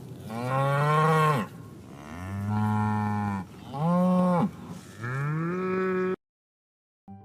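Cow mooing four times in a row, each moo drawn out for about a second, then cutting off suddenly.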